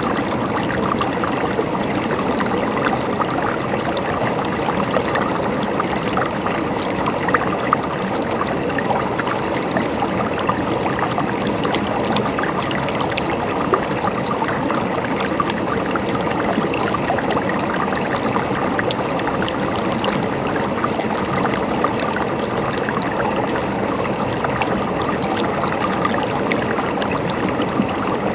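Running water, a stream flowing steadily with a constant trickling and splashing.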